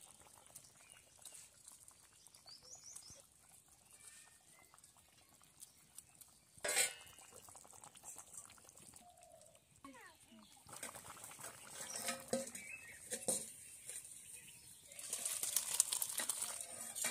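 Fish curry pouring from a black iron kadai into a steel bowl near the end, a noisy wash of liquid. Before that there is a low background with one sharp knock about seven seconds in.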